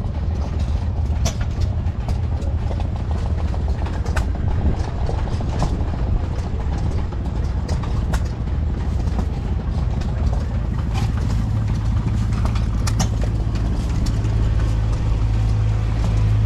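Engine running steadily, a low rumble with scattered clicks and ticks; about two-thirds of the way through, its low tone grows stronger.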